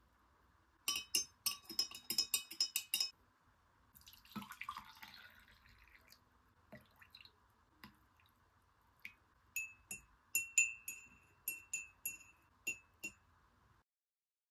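Glassware clinking: a quick run of light clinks about a second in, a short swish around four seconds, then a series of spaced clinks, each with a brief ringing tone.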